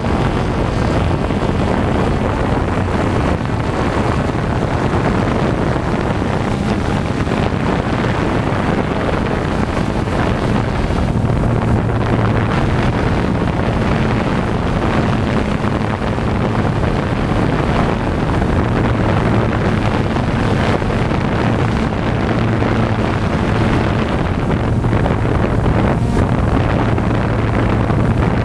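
Camera drone's propellers whirring steadily, with a low hum that wavers a little and wind noise on the microphone.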